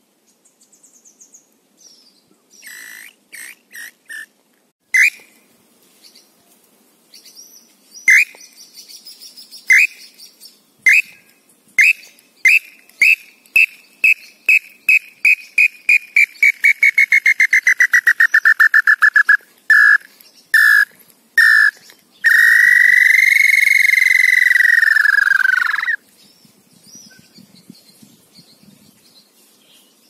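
Tinamou call whistle (pio) sounding the long song of a female small-billed tinamou (pé-vermelho). A few scattered notes lead into a run of short whistles that speed up and slide down in pitch. After a few spaced notes it ends in one long whistle that rises and then falls.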